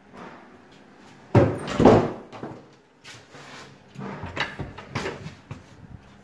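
Built-in storage cupboard doors being opened and shut: two loud knocks about a second and a half in, then a run of clicks and bumps around four to five seconds in as a door is worked by its recessed flush pull.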